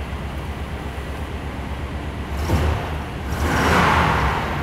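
GMC Sierra K1500's 5.7L small-block V8 running after its intake manifold gaskets have been replaced, with a steady low rumble. About halfway through the engine note rises suddenly, followed by a louder rush of engine noise that fades near the end.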